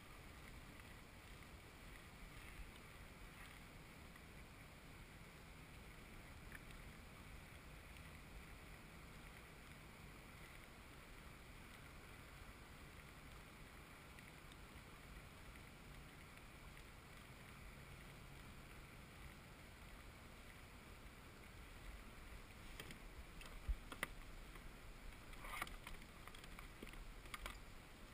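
Faint steady wash of water and wind around a fishing kayak. In the last few seconds come a few sharp knocks and clicks as a landing net is handled against the boat.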